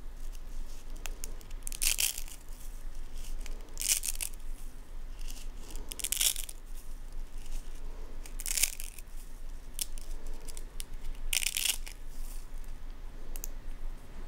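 Dry vermicelli pasta snapping as it is broken by hand into small pieces: about six short, sharp snaps, roughly one every two seconds.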